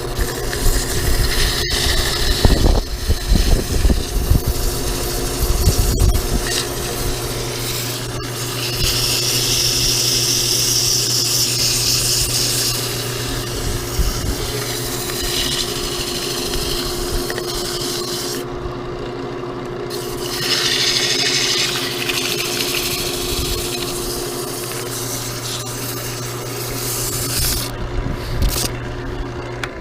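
Sandpaper held against a wooden workpiece spinning on a woodturning lathe: a scratchy hiss that swells and fades over a steady motor hum. The hum stops at the very end.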